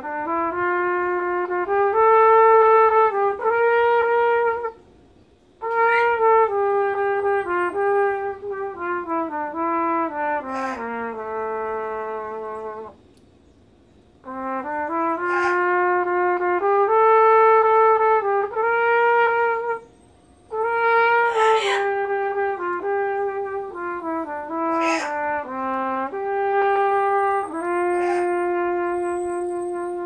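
Solo trumpet playing a slow, unaccompanied melody in four long phrases of held and stepping notes, with short breaths between phrases at about five, thirteen and twenty seconds in.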